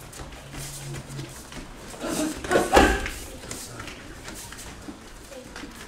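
A martial artist's short, sharp shout (kiai) while performing a kenpo self-defence technique, about halfway through, ending in a heavy thud of a strike or a foot landing on the mat.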